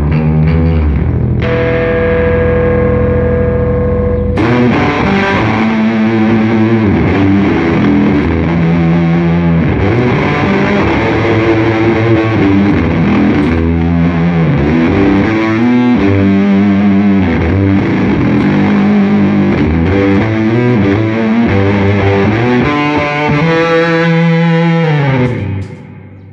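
Squier Bass VI, a six-string baritone bass, played solo. A held note comes first, then a flowing line of picked notes, with a falling slide near the end just before the playing stops.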